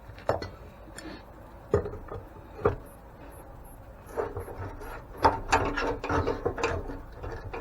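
Knocks and scraping of tools and parts being handled on an antique grain mill during disassembly: three separate sharp knocks, then a busier clatter of clicks and scraping from about four seconds in.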